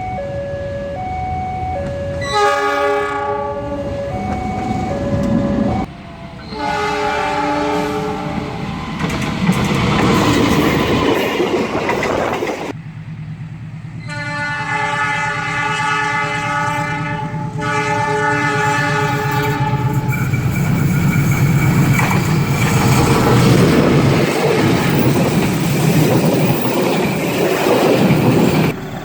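Diesel locomotive horns giving the Semboyan 35 signal, which Indonesian train drivers sound as a warning: three separate multi-note horn blasts, each a few seconds long, the last held for about six seconds. A two-tone alarm alternates at the start, and for the last third a train rumbles past with its wheels clacking on the rail joints.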